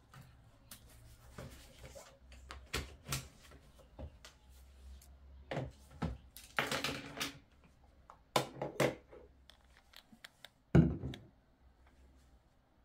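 Household objects being set down and shifted on a desktop: a string of light knocks, taps and clicks with a short scraping stretch about halfway through, and one heavier thud near the end.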